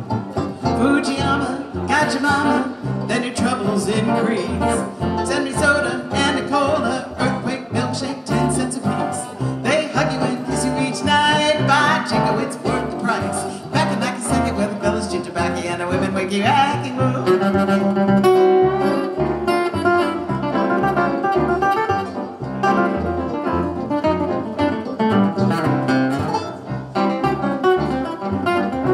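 Live bluegrass band playing an instrumental tune, with piano featured over plucked-string backing.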